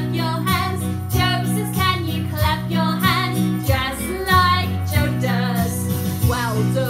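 Woman singing a bouncy children's action song over a recorded backing track with a steady, changing bass line.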